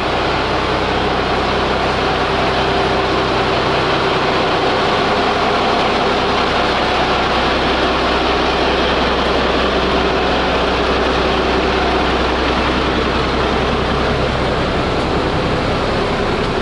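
Diesel rail bus's engine idling as it stands at the platform: a steady, even running sound with a constant low hum.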